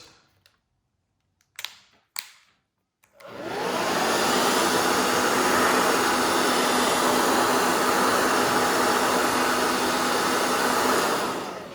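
A couple of handling clicks, then a blow dryer switched on about three seconds in, blowing steadily with a faint hum, to heat grip tape on a pistol frame so it conforms and sticks; it shuts off near the end.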